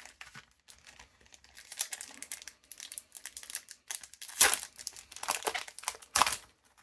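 A foil trading-card booster pack being torn open and crinkled by hand, a run of rustles with the loudest tearing crackles about four and a half and six seconds in.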